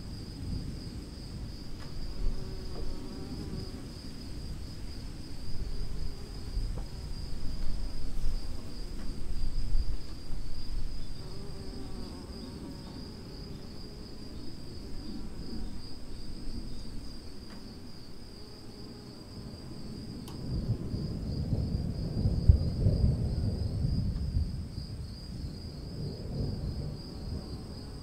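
Steady, pulsing insect chorus, with the low rumble of distant thunder swelling and fading twice, about a third of the way in and again near the end.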